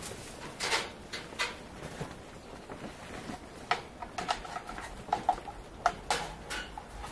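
Irregular light clatters and knocks of plastic feed and water dishes being handled and set against wire-mesh rabbit cages. Some knocks carry a short ring.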